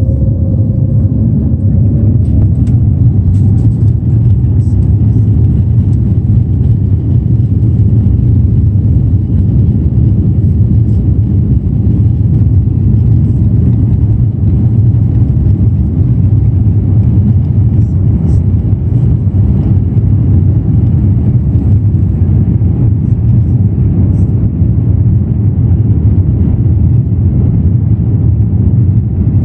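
Airliner cabin noise as the plane rolls slowly on the runway: a steady low rumble of the jet engines and the rolling aircraft, with no rise in pitch or loudness.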